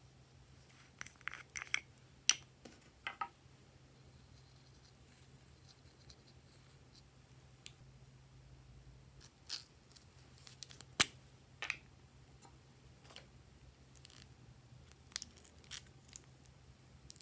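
Scattered small plastic clicks and taps as makeup containers are handled and opened: a compact case and small cosmetic tubes with their caps pulled off. The clicks come in short clusters, about two seconds in, around ten to twelve seconds in, and again near the end, over a faint steady low hum.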